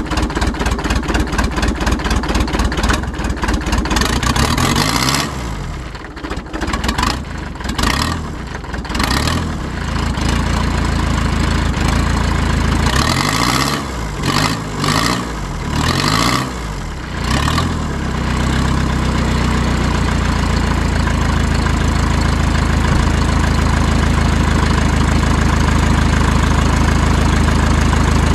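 Mercedes 190D's OM601 four-cylinder diesel engine running soon after a cold start in freezing weather, with a hard, rapid clatter. Its speed sags and picks back up several times in the first half, then it settles into a steadier idle for the last ten seconds or so.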